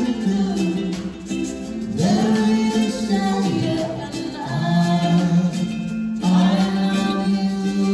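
A slow song with a voice holding long, gliding notes over a plucked-string accompaniment. New sung phrases start about two, four and a half and six seconds in.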